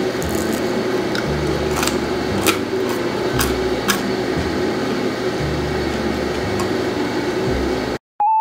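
Golden crust of baked salt bread rolls crackling a few times as hands tear them open, over a steady hum. Near the end the sound cuts out and a short electronic tone starts.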